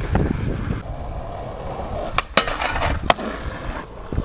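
Skateboard wheels rolling on asphalt with a continuous low rumble. A few sharp clacks of the board come about two and three seconds in, with a rattling stretch between them.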